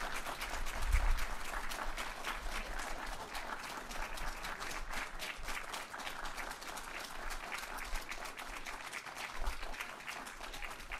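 Audience applauding, many hands clapping steadily, with a low bump about a second in.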